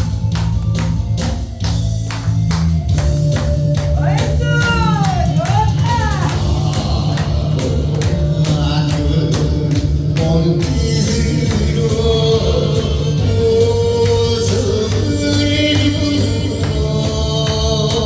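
Music with a steady drum beat and bass line, with a sung melody sliding between notes over it.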